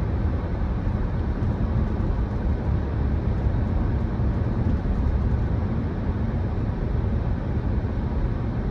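Steady road and engine noise of a car driving at speed, heard from inside the cabin, mostly a low rumble.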